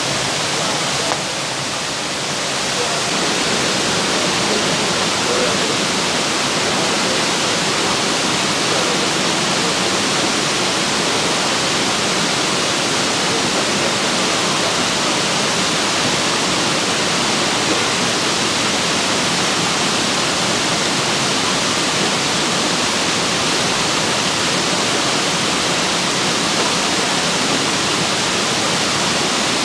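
Loud, steady rush of flowing water, a river or waterfall, dipping briefly about a second in.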